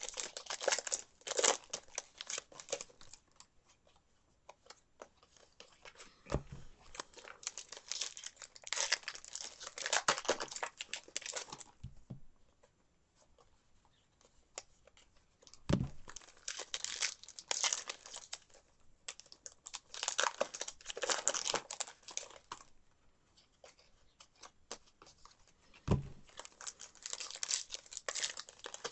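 Trading-card pack wrappers being torn open and crinkled by hand, in bursts of a few seconds with quieter pauses between packs. A few soft knocks are heard at intervals.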